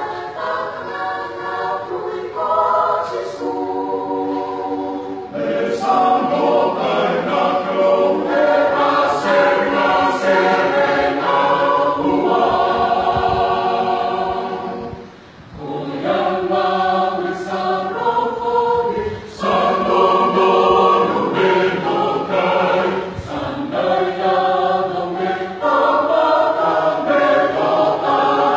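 Fijian Methodist church choir of mixed men's and women's voices singing a hymn unaccompanied. The singing goes in phrases and breaks off briefly about halfway through before coming back in.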